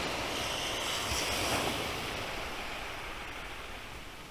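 Sea waves washing onto the beach, a steady rush of surf that slowly dies away.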